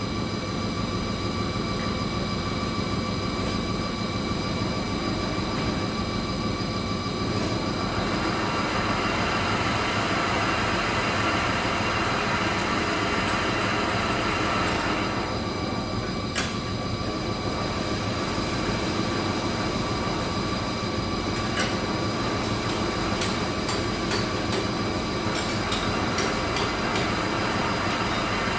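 Jet dyeing machines and other textile dyeing machinery running: a steady mechanical din with several constant whining tones. A hiss swells for several seconds about eight seconds in and again near the end.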